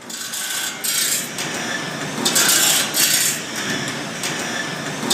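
Tool noise in a sawmill's saw-filing room: several short bursts of high, hissing grinding over a steady background din, from work on bandsaw blades.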